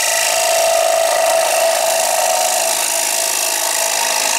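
A carbide hollowing tool cutting the inside of a wooden bowl spinning on a wood lathe: a steady, loud scraping hiss of shavings coming off, over the lathe's whine held on one tone.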